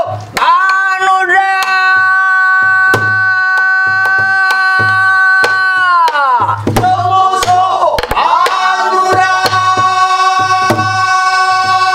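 Pansori singing: a voice holds two long steady notes, each sliding down at its end, over a buk barrel drum struck in a loose rhythm. The drum gives low thumps from the drumhead and sharp clicks from the stick.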